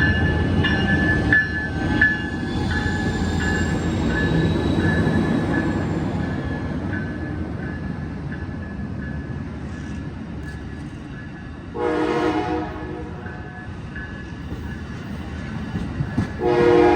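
Amtrak Capitol Corridor passenger train led by an SC44 Siemens Charger locomotive pulling out: the rumble of the cars rolling past slowly fades, with a bell dinging about every two-thirds of a second over the first few seconds. Near the end the locomotive's horn sounds two short blasts, about five seconds apart.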